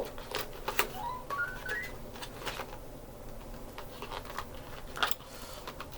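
Scattered light clicks and taps of handling, with a short run of electronic beeps rising step by step in pitch about a second in.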